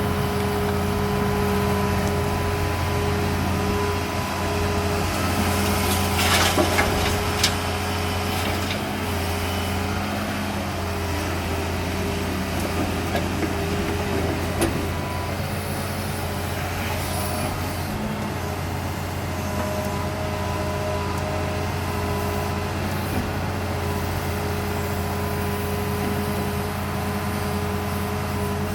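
Excavator's diesel engine running steadily, with a brief rushing noise and a knock about a quarter of the way in.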